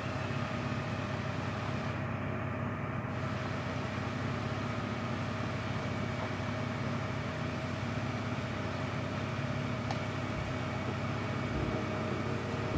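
Off-road 4x4 engine running steadily at an unchanging speed.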